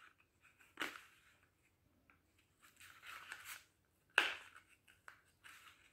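Packaging on a small wooden brush being torn and picked open: a few separate rips and crinkles, with the sharpest rip about four seconds in.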